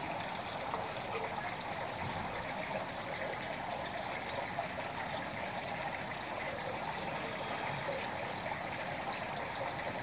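Steady running and splashing of a small garden water feature, water falling down a ledge into a pond.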